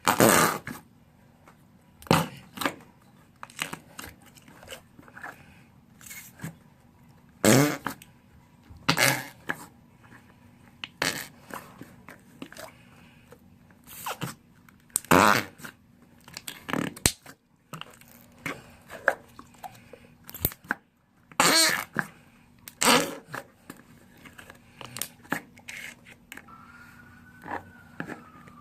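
Homemade slime being squished, making a string of short, irregular fart noises: about ten loud ones among many smaller squelches and pops. A faint wavering tone comes in near the end.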